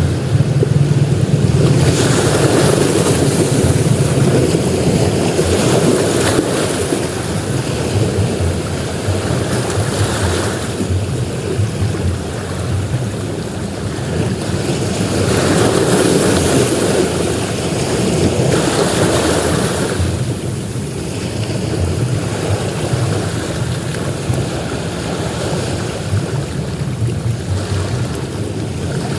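Ocean surf breaking on a beach, the wash of the waves swelling and fading every few seconds over a constant low rumble.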